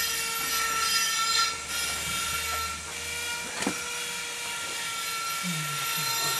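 Steady background hum with high whining tones, and a single sharp knock about three and a half seconds in as the rotary hammer's barrel section is set onto its metal gearbox housing.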